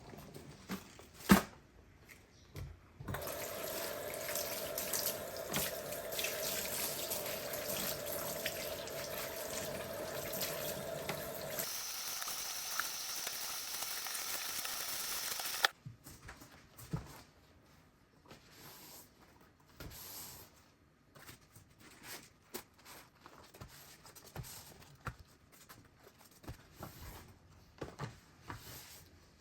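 Water tap running into a sink for about twelve seconds, its sound changing partway through, then shut off suddenly. Light clicks and knocks of handling come before and after.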